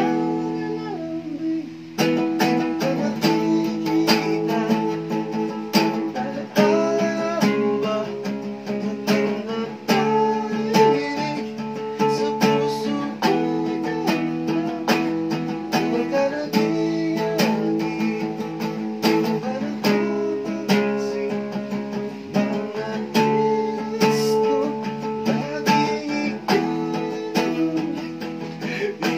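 Acoustic guitar strummed in a steady rhythm, chord after chord. The strumming picks up about two seconds in.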